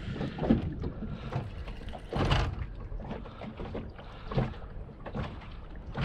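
Wind-driven waves slapping and knocking against a boat's hull at irregular intervals, the strongest knock about two seconds in, over a low rumble of wind.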